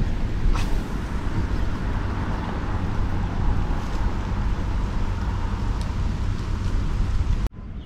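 Steady outdoor background rumble and hiss, with a couple of faint clicks, that cuts off abruptly near the end.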